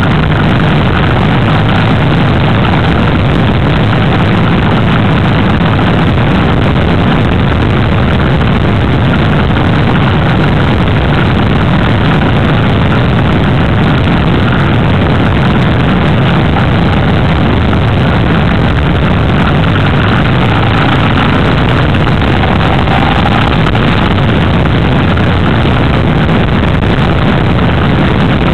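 Motorcycle riding along at a steady road speed: loud, steady engine and wind noise heard from a camera on the moving bike.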